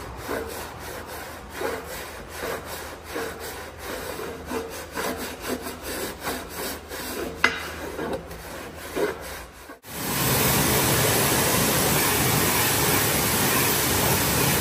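Repeated hand scraping or scrubbing strokes on a steel truck wheel rim, a few a second and uneven. About ten seconds in, this gives way suddenly to the steady, loud hiss of a high-pressure water jet spraying the wheel.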